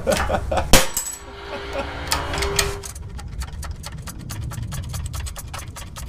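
Metal clatter of steel parts and tooling on a 20-ton hydraulic shop press. There is one sharp clank less than a second in, then a fast, even run of light clicks over the second half.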